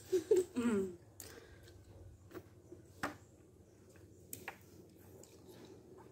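A brief voice sound from one of the eaters in the first second, then scattered small wet clicks and smacks of mouths sucking and biting soft star apple flesh, over a faint steady hum.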